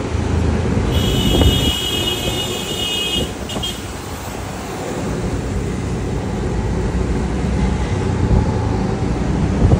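Road traffic noise: a steady low rumble of vehicles, with a high-pitched steady tone for about three seconds starting a second in.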